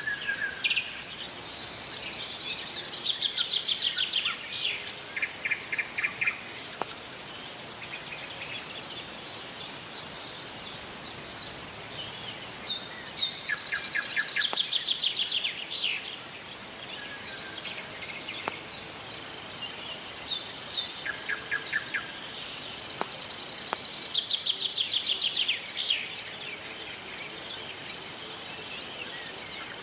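Forest birds singing: one bird repeats a high, rapid trilled phrase about every ten seconds, with shorter trills and chirps from other birds in between.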